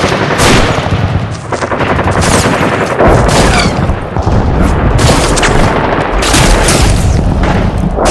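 Rapid, near-continuous automatic gunfire, shot after shot with a heavy booming low end, very loud throughout.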